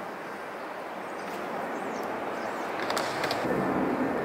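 Steady outdoor background rumble that grows slowly louder, with a few faint clicks about three seconds in.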